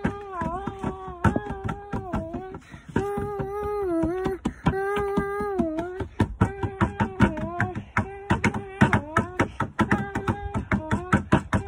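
A song: a sung melody of held notes that slide up and down, over a clicking percussion beat.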